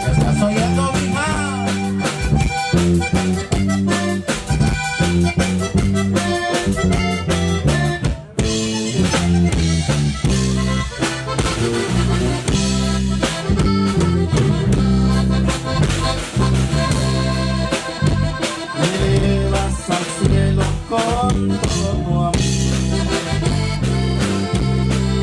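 Live norteño band playing an instrumental passage: accordion carrying the melody over strummed guitar, electric bass and drum kit, with a brief break about eight seconds in.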